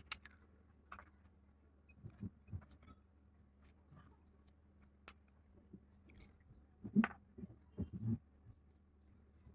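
Scattered light clicks and a few dull knocks of kitchen items being handled, with small clusters of knocks about two seconds in and again around seven to eight seconds.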